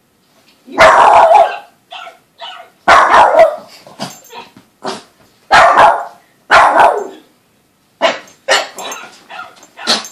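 Boston terrier puppy barking in a string of loud, sharp barks, with a few lighter ones between and a quicker run near the end. She is barking excitedly at a dog on the television.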